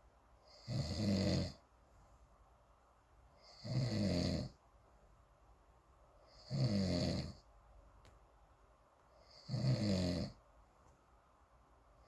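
Snoring: four snores in a slow, even rhythm, each lasting under a second, about three seconds apart.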